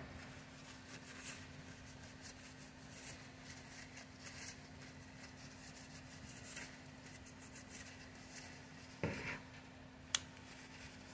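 Faint rustling of a paper towel wiping a fishing reel's metal side plate, with scattered light handling ticks over a steady low hum. A short louder rustle comes about nine seconds in, and a single sharp click about a second later.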